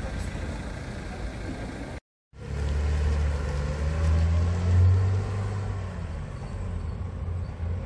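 Police SUVs driving off: first one passing with a rush of engine and tyre noise, then, after a brief cut to silence about two seconds in, another SUV's engine running as it pulls away, a low steady drone that swells about halfway and then eases off.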